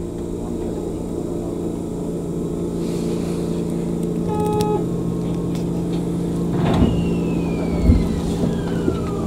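Tokyu 9000 series electric train running, heard from inside the front car: a steady hum from the traction motors and wheels on the rail, slowly growing louder. About halfway through a short high tone sounds. Near the end a high whine glides steadily down in pitch.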